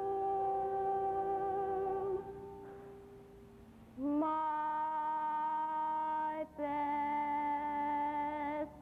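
A small pit orchestra playing long held chords, heard through the theatre's sound system. The first chord fades away about two seconds in; a brighter chord comes in about four seconds in and is held, broken off once for a moment.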